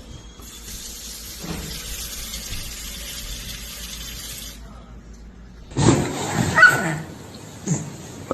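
A steady hiss, then a short run of loud animal calls about six seconds in, with a few fainter ones near the end.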